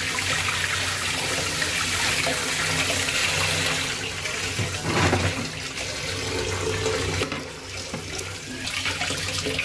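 Kitchen tap running into a steel bowl of fish pieces in a stainless steel sink, splashing as hands rinse the fish under the stream. The water eases for about a second near the end.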